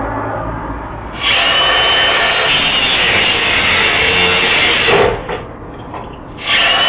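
Angle grinder cutting metal as a vending-machine lock is ground off: it starts up about a second in, runs steadily for about four seconds, stops, then starts again near the end.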